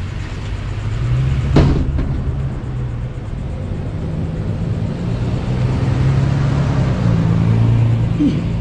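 Steady low rumble of a motor vehicle engine running. A single sharp knock sounds about a second and a half in.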